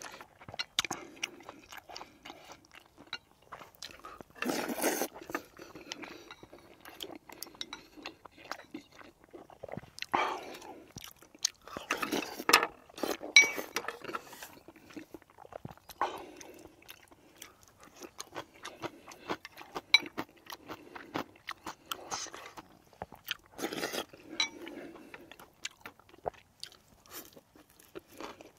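A person chewing food close to the microphone, with many short clicks from chopsticks and spoon against bowls and a few louder bursts of noise.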